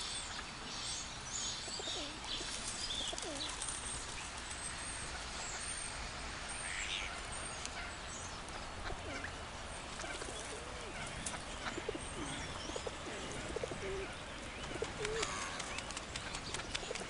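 Lakeside birds calling over a steady outdoor hiss: many short high chirps and twitters, with occasional lower, curving calls mixed in.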